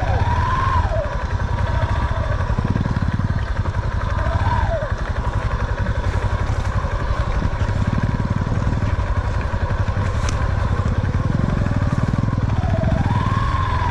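Motorcycle engine running under way on a dirt trail, a steady low rumble throughout. A few short rising-and-falling high tones sound over it.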